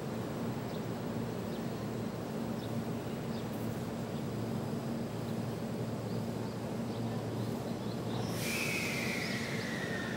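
A JR Central 373 series electric train stands at the platform with a steady low electrical hum. About eight seconds in, a loud hiss of air sets in with a whistling tone that falls in pitch, as the train's air brakes are released for departure.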